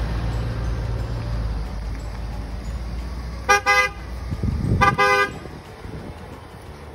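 SUV's car horn tooting in two quick double toots about a second and a half apart, a farewell as it drives off. Under it the BMW X5's engine runs with a low hum that swells briefly between the toots, then fades as the vehicle moves away.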